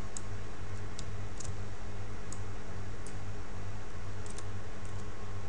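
About eight scattered light clicks of a computer mouse and keyboard over a steady low electrical hum.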